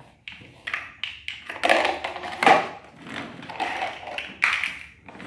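Plastic toy building blocks and a plastic toy excavator knocking and clattering on a tiled floor in irregular taps, busiest about two seconds in.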